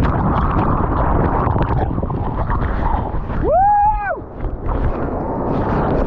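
Whitewater rushing and churning against a camera microphone down in the foam of a big waterfall, a dense, steady noise. About three and a half seconds in, a short high-pitched cry rises, holds and falls away.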